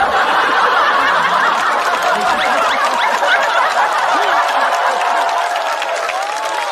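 Studio audience laughing and applauding together in one sustained wave, easing slightly toward the end.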